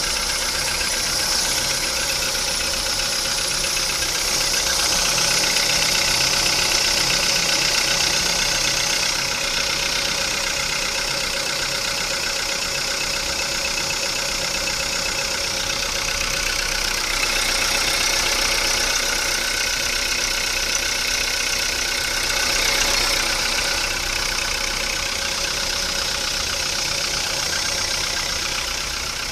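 VW Polo Sedan engine idling steadily, with a steady high-pitched whirr on top that the owner takes most likely for noisy drive-belt rollers (idler/tensioner pulleys).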